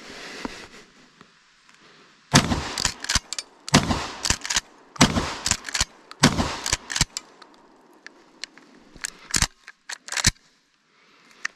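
1920-made Winchester Model 1897 trench shotgun fired four times, about a second and a half apart, with the clack of the pump action between shots. Near the end come a few sharp metallic clicks from the slide being worked.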